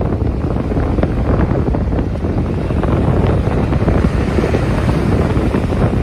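Sea waves breaking and surging around a wooden groyne, a continuous rushing of water with many small splashes, under heavy wind rumble on the microphone.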